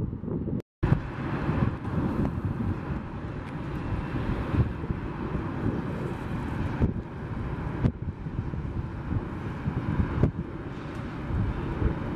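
Jet engines of a Boeing 737 taxiing, a steady rumbling run mixed with gusty wind on the microphone. The sound drops out for a moment under a second in at an edit cut.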